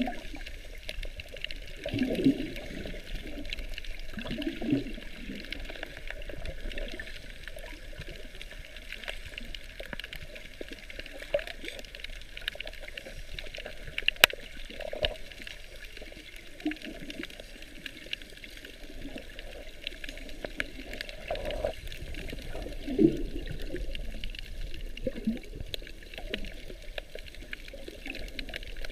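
Sea water heard underwater through a GoPro camera's waterproof housing: a muffled, steady wash with irregular swishes and gurgles of moving water and scattered sharp clicks, the sharpest about fourteen seconds in.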